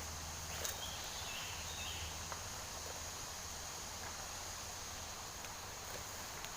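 Steady, high-pitched chirring of insects, with a few light clicks and a brief faint chirp early on over a low rumble.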